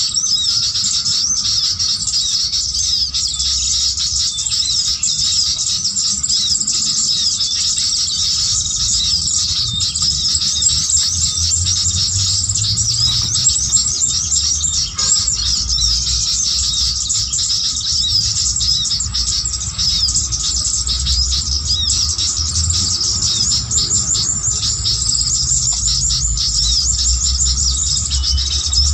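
Dense, unbroken chorus of quick high chirps from small songbirds, the calling used to lure sooty-headed bulbuls for trapping. A faint steady tone and a low rumble run underneath.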